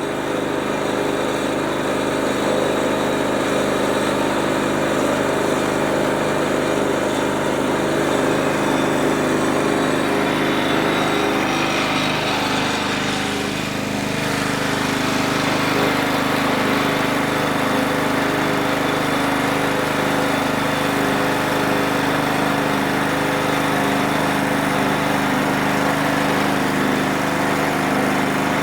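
Sawmill running steadily while cutting through a hard black walnut log, with the feed slowed for the hard wood. The machine's pitch shifts about twelve to fourteen seconds in, then holds steady again.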